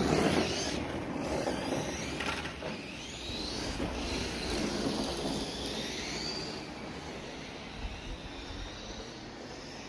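Tamiya GF-01 Heavy Dump Truck RC model's electric motor and gears whining, rising and falling in pitch with the throttle, loudest as it passes close at the start and fading as it drives away.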